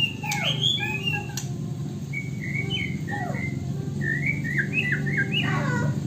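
White-rumped shama (murai batu) singing a run of varied whistled phrases that slide up and down, in three bursts with short pauses between. Its song is filled with copied calls of the poksay Hongkong and the wambi, which the owner puts down to the wrong birds around it and too little tutoring from good master birds.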